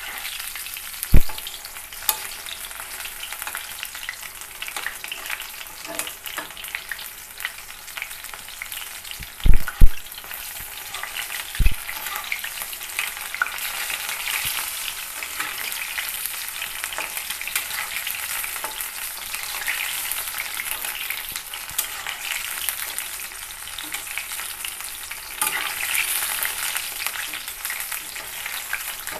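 Batter-coated pumpkin pakoras deep-frying in hot oil in an iron kadhai: a steady sizzle throughout. A few sharp knocks stand out, one about a second in, two close together around ten seconds in and one soon after.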